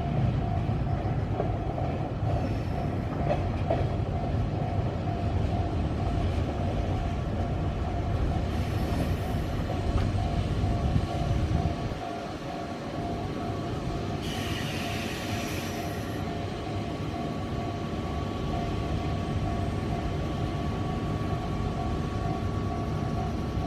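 Electric commuter train running on the line, a steady low rumble that drops away about halfway through, followed by a brief hiss.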